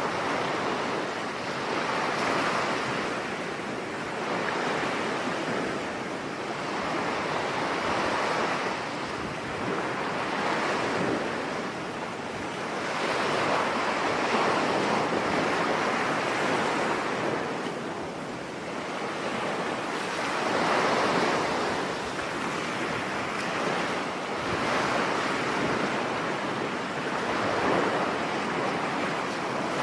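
Ocean surf washing onto a shore: a continuous rush of waves that swells and fades every few seconds.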